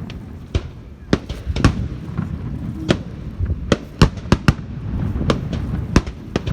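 Fireworks going off: about a dozen sharp bangs at irregular intervals, several close together in the middle, over a continuous low rumble.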